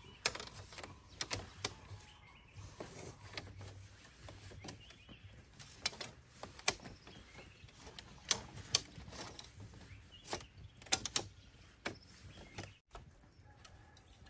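Split-bamboo strips clicking and clattering against one another as they are woven into a flat mat, in irregular sharp clacks.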